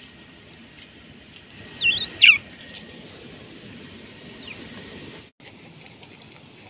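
An otter giving a quick run of loud, high-pitched squeaking chirps that swoop up and down, about two seconds in, as a crab is held out to it. A fainter single chirp follows a couple of seconds later, over a steady high hiss.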